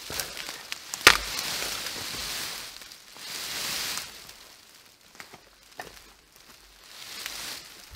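Cut spruce boughs swishing and scraping over dry twigs and forest litter as the tree is dragged, in several swells, with one sharp twig snap about a second in and a few lighter cracks later.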